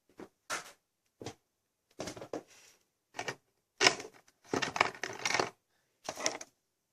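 Pen writing on paper in a notebook: short, irregular scratchy spurts with pauses between them, busiest about two thirds of the way through.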